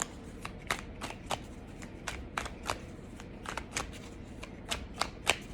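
A tarot deck being shuffled by hand: a string of quick, irregular card clicks and slaps, a few each second.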